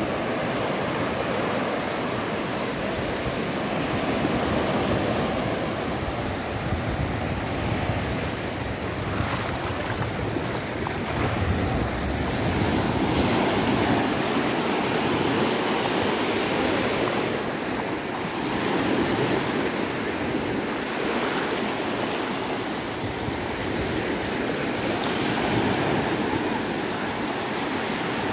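Small ocean waves breaking and washing up a sandy shore, a continuous surf hiss that swells and eases every few seconds, with wind rumbling on the microphone.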